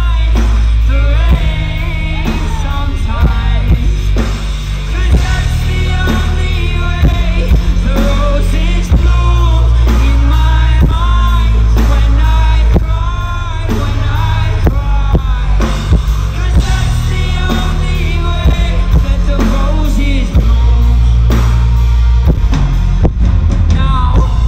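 Loud live rock music from a band on stage: heavy bass and drums, with a wavering melody line on top.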